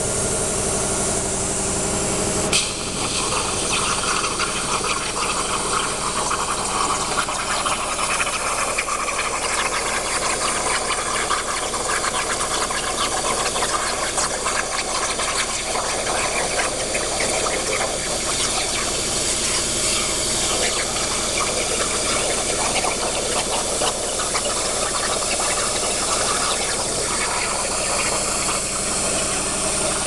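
CNC plasma cutting torch cutting steel plate: a steady, loud hiss of the plasma arc and air jet with fine crackle from the spray of sparks, and one sharp click about two and a half seconds in.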